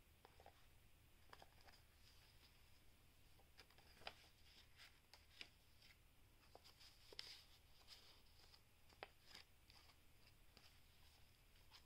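Faint rustling and soft clicks of paper and card as the pages and tucked-in cards of a handmade junk journal are handled, a dozen or so light touches over a faint steady hiss.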